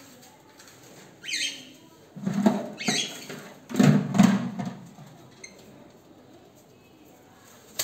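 Cockatiels giving two short, high, falling chirps, between two louder bursts of knocking and rustling from handling near the cage.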